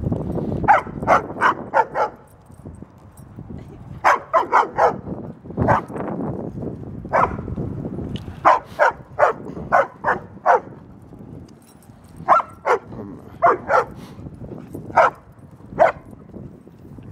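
A female German Shepherd barking in quick runs of sharp, high barks, three or four at a time with short pauses between. These are frustrated bids for attention and play from a dog the bigger dogs are leaving out.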